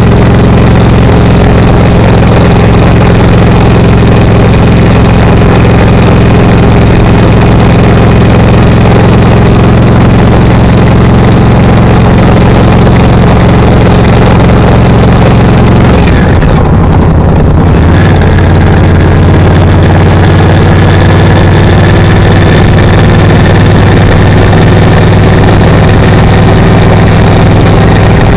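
Car engine and road noise heard from inside the vehicle, a steady drone. About sixteen seconds in, the engine note changes pitch.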